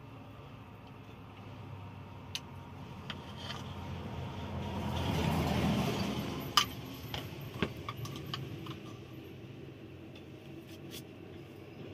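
Truck engine and road noise heard inside the moving cab, swelling to a peak about five seconds in and easing off again, with loose items in the cab rattling and clicking a few times.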